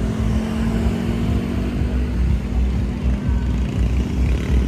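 Scooters and cars running along the bridge roadway, a steady low traffic hum, with wind buffeting the microphone.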